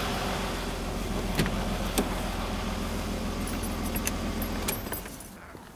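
Mercedes-Benz M110 straight-six in a 1980 W126 280SE idling smoothly, its exhaust quiet with the leaking muffler patched. A few light clicks and a jingle of keys come near the end as the engine is switched off, and the running stops.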